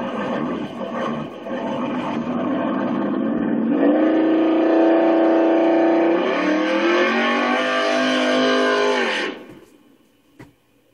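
1967 Chevrolet Camaro engine running hard during a burnout and donut, with the rough noise of spinning tyres in the first few seconds. Then the revs climb, dip briefly, climb again, and the sound cuts off abruptly near the end.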